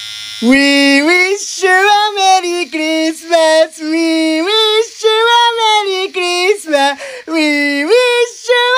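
A high voice singing a tune in short held notes that slide from one pitch to the next, with no beat behind it.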